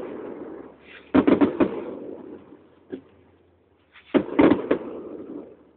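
Fireworks going off: two quick clusters of bangs, about a second in and again about four seconds in, each fading away in echo, with a single bang near three seconds.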